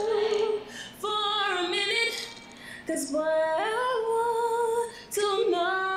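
A woman singing a cappella, holding long notes with slides and bends between them, in phrases broken by brief pauses for breath.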